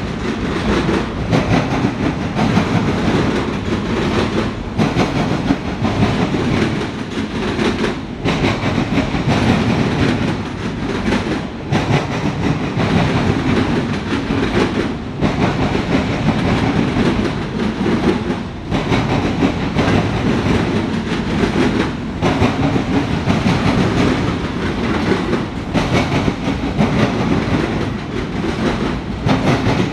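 Autorack freight cars rolling past: a steady loud rumble and clatter of steel wheels on the rails, with a short lull every three to four seconds.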